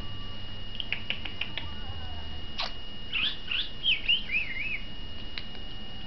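Budgerigar chirping and warbling: a few short clicks, then a sharp chirp and a run of quick whistles that rise and fall in pitch.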